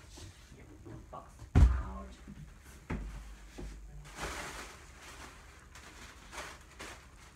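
A cardboard box set down on a desk with a sharp thud about one and a half seconds in, then a lighter knock, followed by rustling of packing material and a few small taps as the shipping carton is unpacked.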